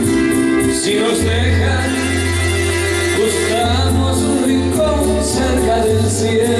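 A man singing into a handheld microphone over Latin-style music with a steady bass line and sustained chords.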